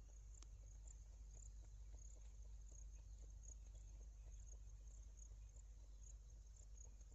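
Near silence: faint, steady insect chirring, typical of crickets, over a low rumble.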